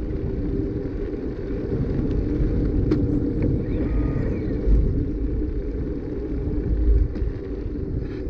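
Bicycle riding along an asphalt path: a steady low rumble of tyre and wind noise at the microphone, with two short louder bumps, one about halfway through and one about seven seconds in.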